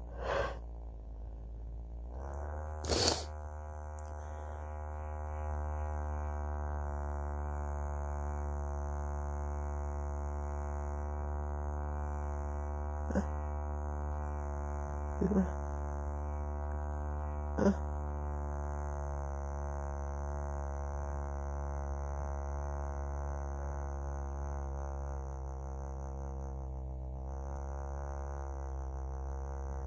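Small handheld vibrator buzzing steadily against the nose. It comes on about two seconds in with a slight rise in pitch and settles into one even hum. A few short, sharp sounds cut through it, the loudest about three seconds in.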